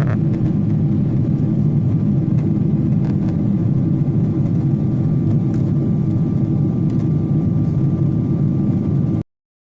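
Steady low rumble of jet airliner engines with a faint, steady high whine above it; the sound cuts off abruptly near the end.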